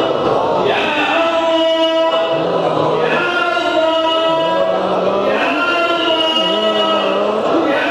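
Men's voices chanting a dua, an Islamic supplication, in long drawn-out melodic phrases, with a lower voice coming in briefly three times.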